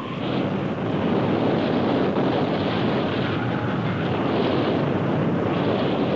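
Steady rushing roar of tornado wind, swelling a little about a second in.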